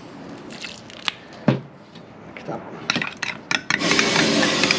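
Clicks and taps of a spoon on a glass mixing bowl as a lime is squeezed in and the dipping sauce is stirred. About three and a half seconds in, a loud, steady rush of a propane burner under the crawfish boil pot comes in and becomes the loudest sound.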